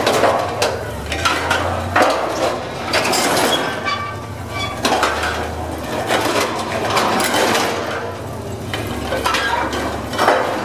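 Large steel walking machine (The Walking Beast) walking, its legs and linkages clanking and rattling with sharp metal knocks about once a second, over the low steady rumble of its engine that swells every few seconds.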